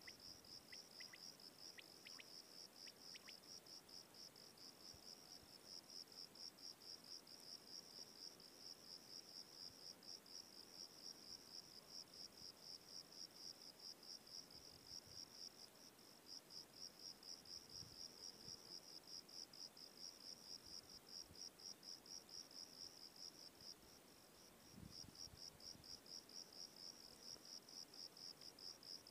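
Faint, high-pitched chirping call repeated steadily, about three or four pulses a second, breaking off briefly a few seconds before the end.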